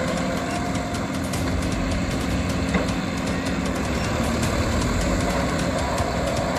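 John Deere 5305 tractor's three-cylinder diesel engine running steadily under load as it drives a rotavator through wet paddy mud. The sound is a continuous low engine drone, with the tiller churning mud and water underneath.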